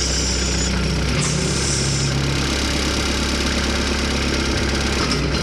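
Compact tractor's engine running steadily, with a high hiss over it that fades out about two seconds in.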